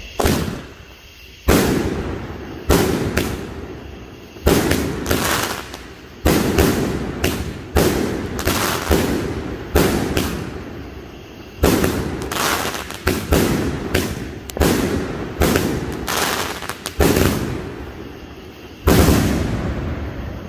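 A 500-gram 'Super 16' consumer firework cake firing its shots in quick succession: a string of sharp bangs, each launch and aerial burst trailing off before the next. The shots come about half a second to a second and a half apart, with a pause of about two seconds before a final bang near the end.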